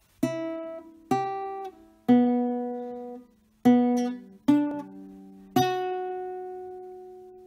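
Short intro tune of six plucked notes, each ringing and fading; the last note is held and slowly dies away.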